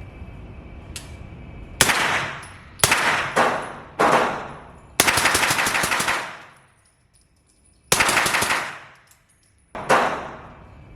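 Suppressed gunfire: four shots in quick succession, then two rapid strings of fire and a last single shot near the end, each shot with a short ringing tail.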